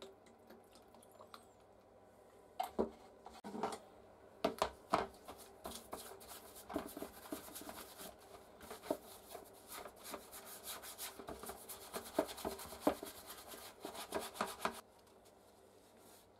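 A brush scrubbing rusty steel pliers in a wet plastic tub, a dense scratchy rubbing that stops abruptly near the end. A few knocks come a few seconds in as the pliers are handled in the tub.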